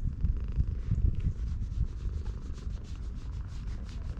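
A hand rubbing and scratching a cat's fur right against the microphone, a rustling rasp that turns into quick, regular scratching strokes, several a second, from about a second and a half in. Under it runs a low rumble of the cat purring.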